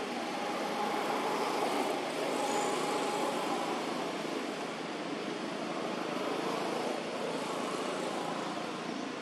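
Steady background noise of road traffic, with a faint engine tone in the first few seconds.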